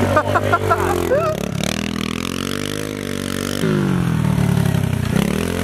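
Pit bike engine running under throttle as the bike rides across the grass, its revs dipping and rising, with a clear jump up in revs a little past the middle.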